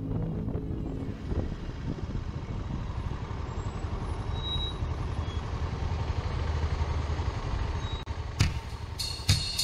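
Cruiser motorcycle engine running at low speed with road and wind noise, heard from the rider's seat as the bike rolls along in slowing traffic. Music with drum hits cuts in near the end.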